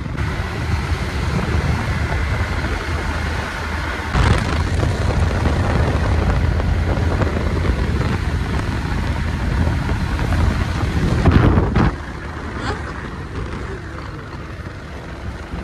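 Motorcycle on the move: engine and road noise with wind buffeting the microphone. The noise swells briefly about eleven seconds in, then drops to a lower level.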